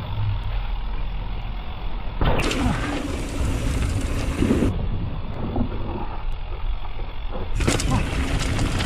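Mountain bike riding down a dirt trail: a steady low rumble of wind on the microphone, with rattling and knocks from the bike and tyres in several stretches.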